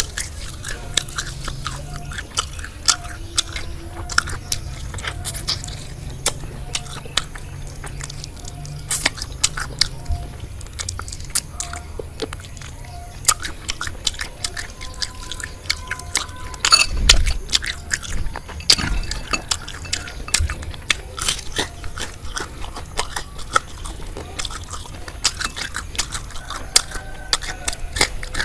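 Close-up chewing and crunching of deep-fried frog in a crisp corn-flour batter: irregular crackly bites and chews throughout. There is one louder low thump a little past halfway.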